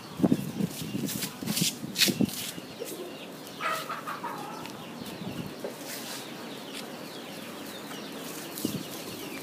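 Sharp rustles and snaps of leafy garden plants as dogs push through them, loudest in the first two seconds. A chicken clucks briefly about four seconds in.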